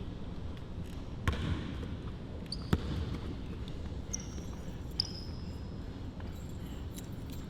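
Basketball bouncing on a gym court during one-on-one play, with two clear bounces about a second and a half apart and fainter ones around them. Short high squeaks, typical of sneakers on a hardwood floor, come in a few times over the room's steady hum.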